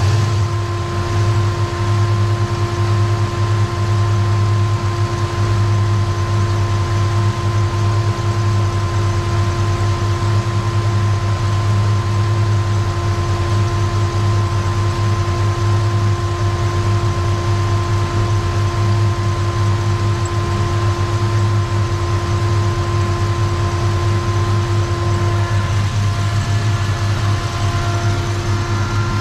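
Turbocharged 302 V8 in a 1987 Ford Ranger idling steadily, with a thin steady whine over the idle.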